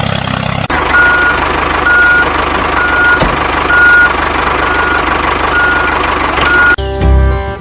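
A truck or construction vehicle's engine runs while its reversing alarm beeps about once a second, seven beeps in all. Near the end it cuts off suddenly and music begins.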